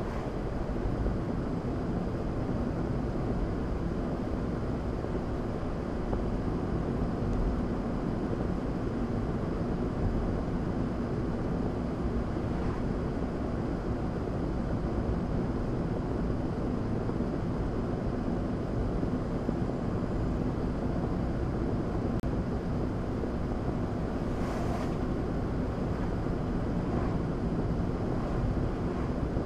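Steady road and engine noise inside a car cruising at about 40 mph: an even rumble of tyres on tarmac. A brief hiss comes about 25 seconds in.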